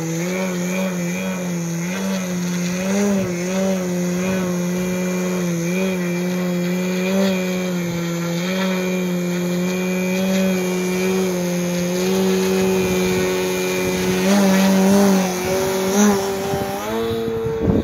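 Electric motor and propeller of a 91-inch Slick 540 aerobatic RC plane hovering prop-up on a 12S battery, a steady drone whose pitch wavers slightly with small throttle corrections. About a second before the end the pitch jumps up as the throttle is opened and the plane climbs out.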